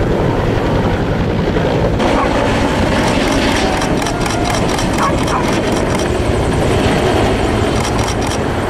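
Bell UH-1 Huey helicopter flying low overhead, its turbine engine and two-blade main rotor running steadily.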